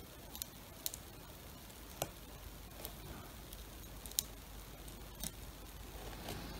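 Faint, scattered light clicks as a thin wire scrapes epoxy resin out of a small metal lid into a cap packed with lead shot, the wire tapping the lid's rim now and then. A handful of separate ticks over a low steady hiss.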